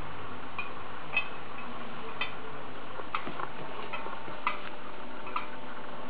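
Light, sharp clicks from a small metal hand instrument being handled, about eight of them at irregular intervals, over a steady background hiss.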